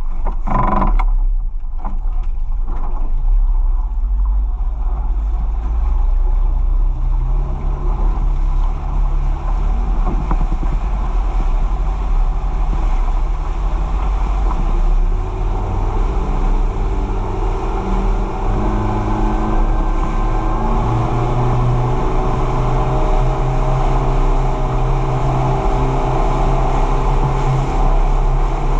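Small fishing boat's engine running steadily, picking up speed about halfway through as the boat gets underway, with water rushing along the hull. A few knocks come in the first seconds.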